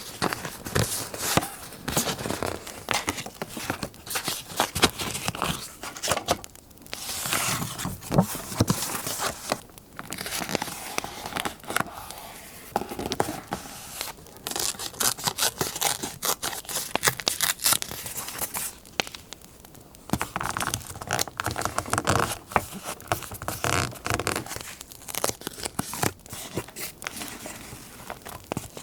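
Paper being torn and crinkled by hand, in irregular rustling strokes with short pauses.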